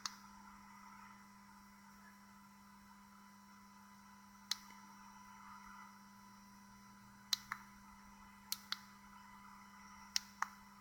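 Button clicks on a pocket oscilloscope being worked through its menus: about eight short sharp clicks, scattered and often in pairs, over a faint steady hum.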